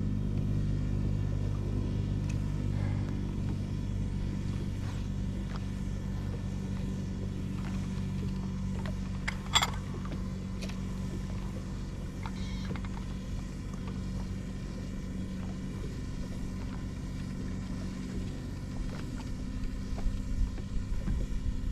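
Boat motor running steadily with a low hum, and a single sharp click about ten seconds in.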